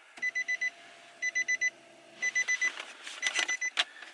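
Pickup truck's door-open warning chime: quick high beeps in groups of four, about one group a second. A faint low hum sounds under the first half, and a couple of clicks come near the end.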